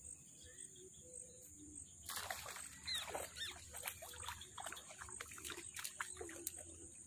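A hooked tilapia thrashing at the water surface on a pole line, splashing irregularly and repeatedly from about two seconds in until near the end.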